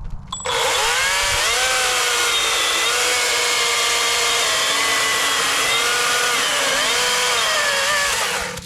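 Harbor Freight Atlas 40-volt brushless battery chainsaw starting about half a second in and cutting through a log, its electric whine dipping in pitch and recovering several times as the chain bites under load, then stopping near the end.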